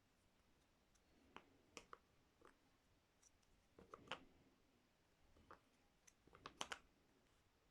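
Faint scattered clicks and light taps, with a small cluster near the end, of inset-frame puzzle pieces being handled and set into the frame board.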